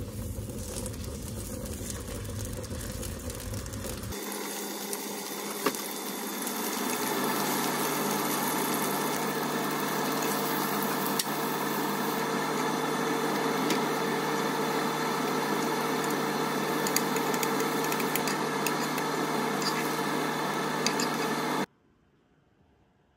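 Beef steak sizzling in oil in a frying pan, with scattered crackles and a steady hum underneath. The sizzle grows louder about four seconds in and cuts off suddenly near the end.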